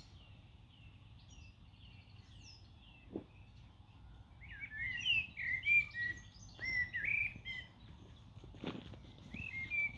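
Small songbirds chirping and twittering, sparse at first and busy in the second half, over a low steady background noise, with a couple of brief faint knocks.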